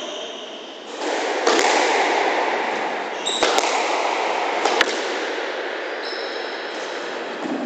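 A squash rally: the rubber squash ball is struck by rackets and cracks off the walls of the enclosed court. Three sharp hits come roughly a second to two apart, over the shuffle of players moving about the court.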